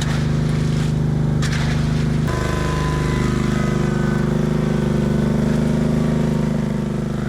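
Diesel engine of a concrete mixer truck running steadily while it discharges concrete; about two seconds in its note steps up as the revs rise. Two brief scrapes come just before the change.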